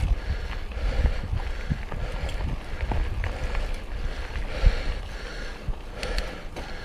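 Mountain bike rolling along a dirt trail: tyres on the ground and the bike knocking and rattling over bumps, with wind buffeting the microphone.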